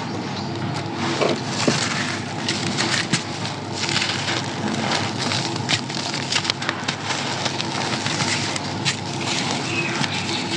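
Crumbly sand-cement being crushed, a continuous crunching crackle packed with many sharp little cracks.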